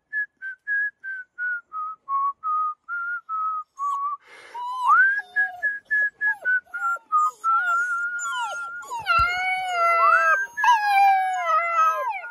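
A man whistles a quick series of short, pure notes, about three or four a second, slowly stepping down in pitch. From about four seconds in, a litter of black German Shepherd puppies joins in with wavering, gliding howls and whimpers that overlap each other and the continuing whistle.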